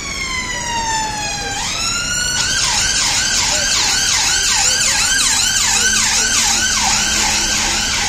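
Police car siren passing: a slow wail sweeping down in pitch, which about two seconds in jumps up and changes to a fast yelp of about three sweeps a second, over the hum of street traffic.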